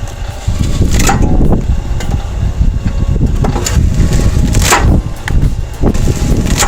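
Heavy machinery breaking up wood: a dense, continuous low rumble with loud, sharp cracks of splintering wood, three of them standing out about one, three and a half, and nearly five seconds in.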